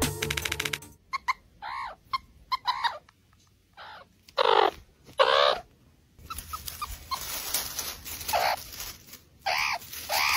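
Meerkat pups calling: a string of short, high squeaky chirps, each rising then falling in pitch, coming a second or so apart, with short pauses between runs.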